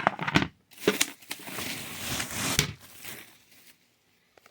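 Bubble-wrapped parts being unwrapped by hand: plastic packaging handled in a noisy, irregular stretch from about a second in that fades away after about three seconds.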